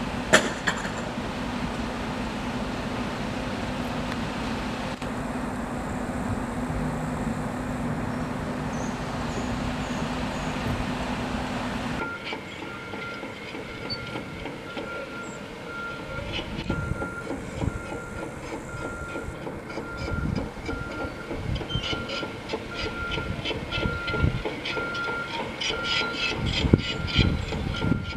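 Construction machinery: an engine's steady drone, then a sudden change to a reversing alarm beeping about once a second over working machines, with clanks and knocks growing busier toward the end.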